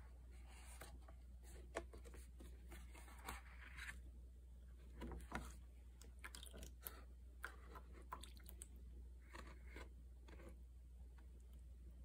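Faint, scattered clicks, taps and short scrapes of a taped painting board being handled and tilted in a plastic palette tray, over a low steady hum.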